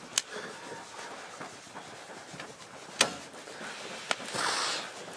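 Wood campfire being worked hard to make it catch: a few sharp snaps and knocks, and a short rush of air a little past four seconds in.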